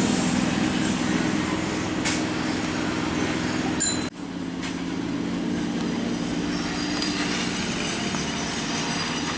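Electric train rolling past on the track: steady rumble and rattle of wheels on rail, with a couple of sharp clinks and a sudden brief dip in the sound just after four seconds in.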